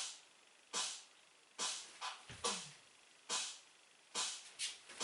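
Rhythmic practice beat for counting karate moves: short hissing hits about every 0.85 s, some followed by a quick second hit, with a deep thump once every four beats.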